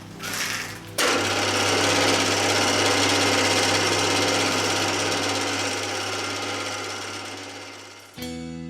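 Milling machine taking a cut in metal with a 6 mm carbide end mill: a loud, harsh cutting noise starts about a second in over the steady hum of the mill's motor, then fades. Guitar music comes in near the end.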